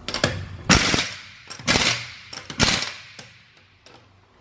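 Impact gun running lug nuts onto a wheel in three short rattling bursts about a second apart, snugging them at low power before they are torqued by hand.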